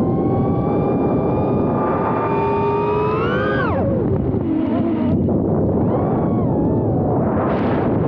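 Small 3-inch FPV quadcopter's motors whining, their pitch changing with throttle, with wind noise rushing over the microphone. The whine climbs, then falls sharply about three and a half seconds in as the throttle is cut, and stays lower and fainter after that.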